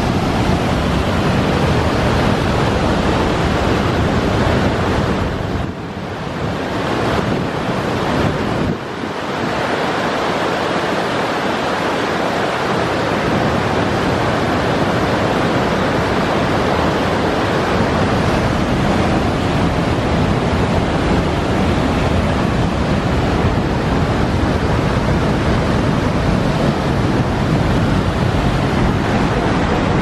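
Loud, steady rush of water from Screw Auger Falls, the Bear River pouring over and through granite ledges and potholes. It dips briefly twice, about six and nine seconds in.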